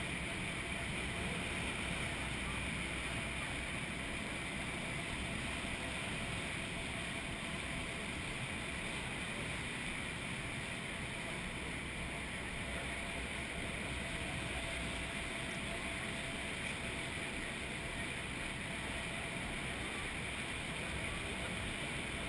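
Steady, unbroken rushing roar of water from Niagara Falls and the churning water around the tour boat.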